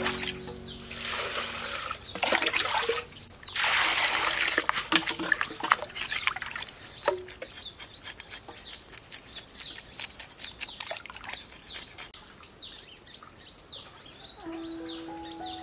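Water poured from a plastic dipper splashing loudly into water, twice in the first few seconds, then smaller splashes and knife strokes as a fish is scaled in a basin of water. Small birds chirp repeatedly, and a few music notes come in near the end.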